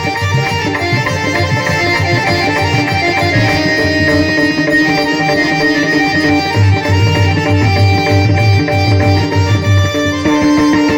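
Pakhawaj drumming under held melodic notes in a devotional bhajan's instrumental passage. The deep bass strokes of the drum drop away for several seconds in the middle and come back near the end.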